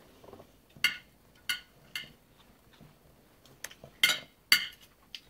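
High chair seat belt buckle clicking and clacking, about seven separate sharp clicks, the loudest two near the end, as a toddler tries to push the two halves together without latching them.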